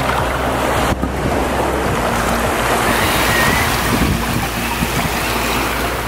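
Small waves washing in over sand in shallow surf, a steady rushing that swells about halfway through, with wind rumbling on the microphone.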